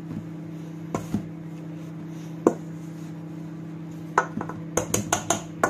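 Wire potato masher striking and pressing butter into flour in a stainless steel bowl: irregular metal-on-metal clinks and taps against the bowl, a few scattered at first, then coming quickly several to the second near the end.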